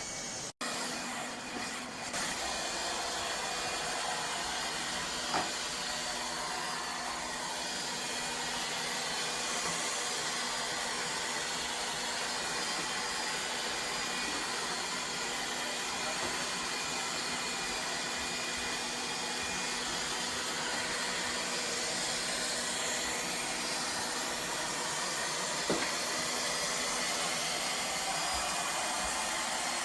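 Robot vacuum running steadily, its suction motor giving a constant whirring hiss with a faint hum. Two faint knocks, about five seconds in and again near the end.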